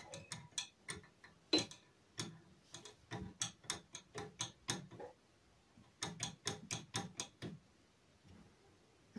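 A rapid, irregular series of light clicks and taps from hands working on the radio's front mechanism, in two runs with a short pause between them.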